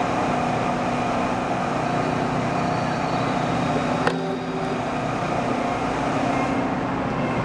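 City street traffic noise with a steady engine hum. There is a sharp click about four seconds in, and a car passes near the end.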